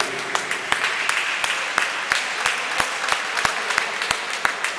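Spectators applauding, with sharp single claps standing out in a steady rhythm of about three a second.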